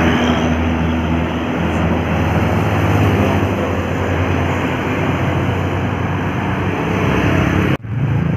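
Road traffic passing close by: a large vehicle's engine running with a low steady hum under loud tyre and road noise. It breaks off suddenly near the end.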